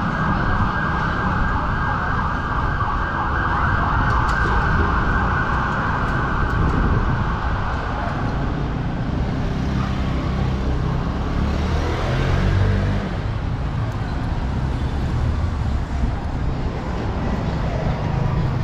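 City street traffic: engines running with a steady low rumble, and a vehicle passing about two-thirds of the way through. A continuous high whine-like sound runs over it and fades out about halfway.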